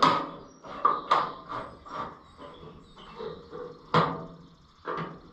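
Irregular sharp metallic clinks and knocks, about half a dozen, loudest at the start and about four seconds in: hand tools and bolts being worked loose on a tractor's sheet metal, the hardware seized and tough to remove.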